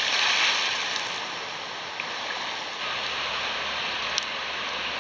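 Swimming pool water splashing and churning just after a dive, dying away over the first second or two into a steady hiss.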